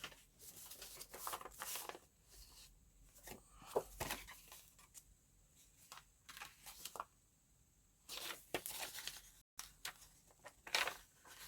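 Intermittent rustling and crinkling of paper packaging with a few small clicks and knocks as items are handled.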